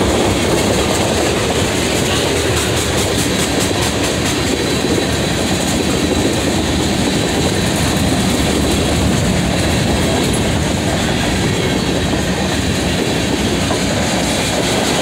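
Freight train's tank cars and covered hoppers rolling past: a steady rumble and clatter of steel wheels on the rails.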